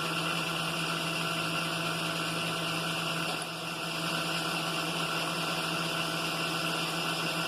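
Milling machine spindle running steadily with a boring head mounted, a steady motor hum with a slight dip a little after three seconds.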